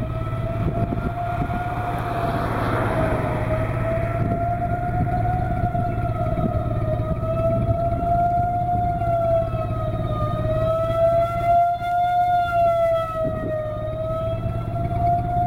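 Outdoor civil defense siren sounding a steady tornado warning tone, its pitch slowly wavering up and down, over a steady low rumbling noise.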